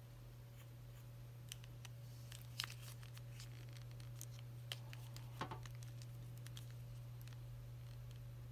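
Plastic joints and panels of a Transformers Kingdom Leader-class Megatron figure clicking and scraping as it is transformed by hand: scattered light clicks, the sharpest a little before three seconds and again about five and a half seconds in, over a steady low hum.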